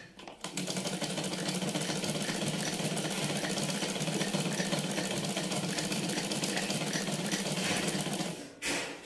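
Domestic sewing machine stitching a seam, a steady, fast, even clatter that starts about half a second in and stops shortly before the end.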